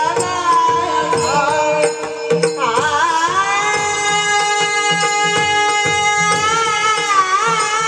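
A girl singing a devotional bhajan in raga Bhairavi, holding long notes with bending ornamental turns about three seconds in and again near the end, over a steady drone with light tabla and tambourine.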